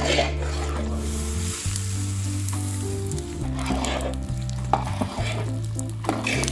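Whole-wheat flour frying in ghee in a large iron karahi, sizzling steadily while a metal ladle stirs it, with a few stirring strokes through the mixture.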